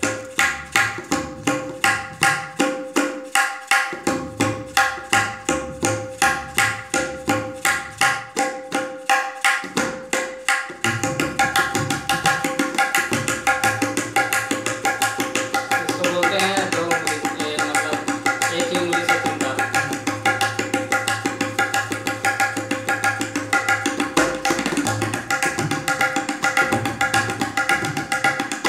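Tabla played in teentaal (tintal), the 16-beat cycle. For about the first eleven seconds it plays even single strokes, two or three a second, with the dayan ringing at a held pitch. Then the playing turns fast and dense, with a low bayan tone sustained through the middle.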